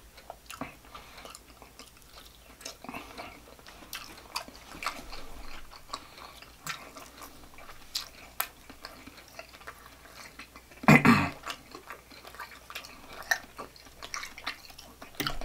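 Close-miked chewing of sausage and fried meat, with wet mouth clicks and smacks scattered throughout and the odd tap of a plastic fork on the tray. About eleven seconds in there is one brief, loud sound from the voice, like a short hum.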